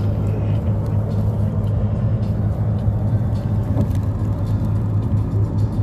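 Road and engine noise of a moving car heard from inside the cabin, a steady low drone.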